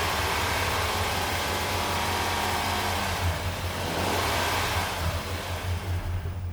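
2013 Acura MDX's V6 engine running and being revved after an oil change, to circulate the fresh oil. The engine's steady hum carries a broad rushing sound that eases off near the end.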